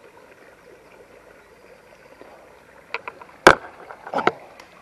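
Handling knocks and clicks while a small chub is unhooked: a few sharp clicks about three seconds in, one louder knock just after, and another short cluster of knocks near the end.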